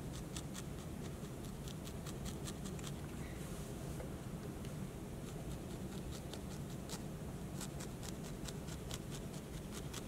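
Barbed felting needle stabbing through wool roving into a foam pad: a run of faint, scratchy pokes, a few a second and unevenly spaced.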